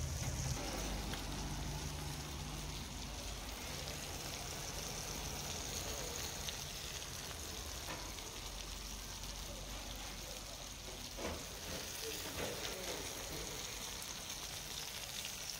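Whole masala-coated red snapper frying in oil on a flat tawa griddle: a steady sizzle with scattered small crackles.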